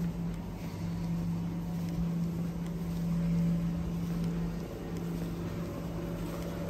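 Steady low machine hum inside a shop, with a brief dip a little past halfway.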